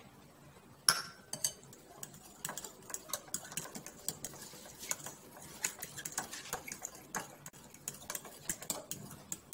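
A spoon stirring a wet banana batter in a bowl, clinking and tapping against the bowl's sides in quick irregular strokes; the sharpest clink comes about a second in.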